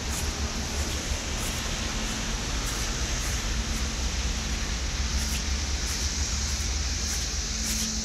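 Steady rushing roar of a vacuum excavation truck's suction working through a long remote hose, with a heavy low rumble and a high hiss, unchanging throughout.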